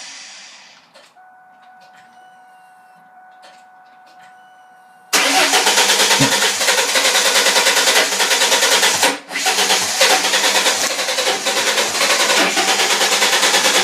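2000 Ford Mustang's 3.8-litre V6 being cranked on the starter. A loud, even cranking sound cuts in suddenly about five seconds in, after a few seconds of a faint steady tone. The engine cranks but does not catch and run.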